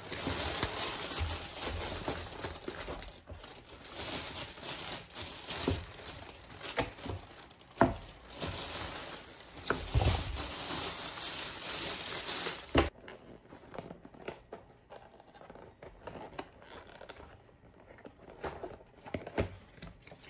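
Crinkling and tearing of packaging being handled, dense and continuous, which stops suddenly about thirteen seconds in. Sparse light clicks and taps follow.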